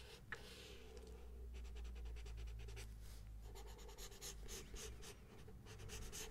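Pencil drawing on paper close to the microphone: soft scratching, which turns about a second and a half in into a run of quick, closely spaced strokes.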